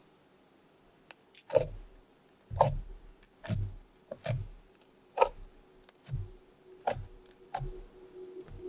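Yellow bead slime being pressed and worked by hand: about eight separate wet clicks and pops, roughly one a second, starting about a second and a half in.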